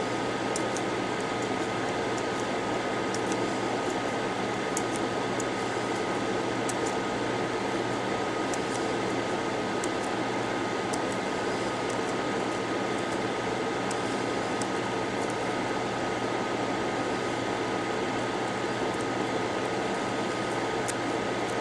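Steady whirr of a small electric fan running with a constant high whine, and faint scattered light clicks from a metal tool scraping at a phone board part.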